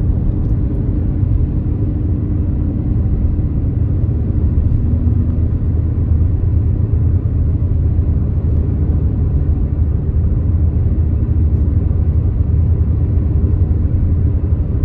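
Steady low rumble of a car cruising on smooth asphalt, its engine and tyre noise heard from inside the cabin.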